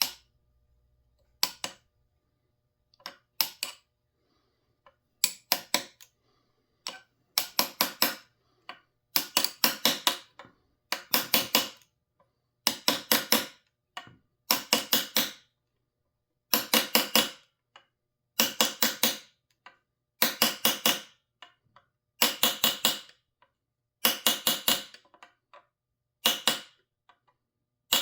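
Hammer tapping a long punch to drive a homemade fuel line into its hole in a McCulloch PM 700 chainsaw: quick bursts of three to five sharp metallic taps, a burst every second or two, faint at first and louder after several seconds.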